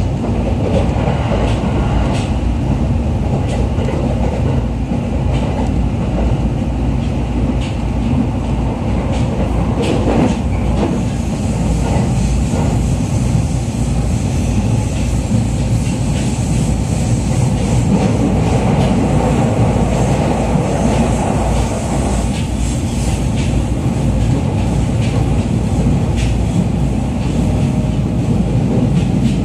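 Interior running noise of a JR East E501 series electric train travelling at speed: a steady rumble of wheels on rail, with occasional clicks from the track.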